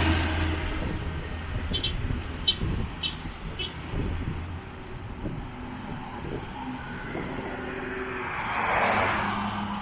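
Road traffic: a vehicle passes as the sound opens, its engine hum fading over the first few seconds, then a second vehicle passes near the end. Four short high chirps sound between about two and four seconds in.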